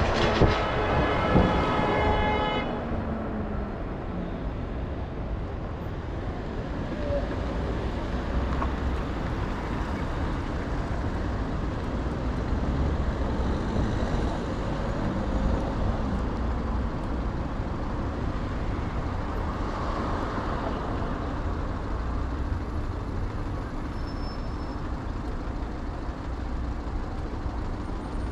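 A vehicle horn sounds, held for about the first two and a half seconds, over steady street traffic. After it the traffic noise goes on, with low wind rumble on the microphone from riding.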